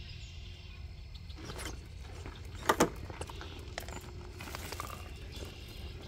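Traxxas TRX4 RC rock crawler with a Hobbywing AXE brushless system creeping over rocks: a faint steady motor and gear whir with small clicks and scrapes of the truck on stone. Two sharp knocks close together about three seconds in are the loudest sounds.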